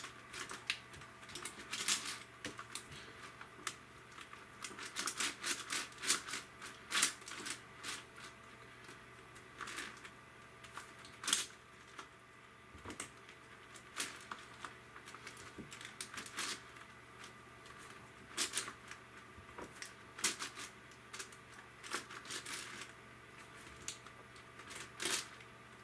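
Layers of a Yuxin Huanglong 17x17 magnetic speedcube being turned by hand, clacking irregularly as each turn snaps into place.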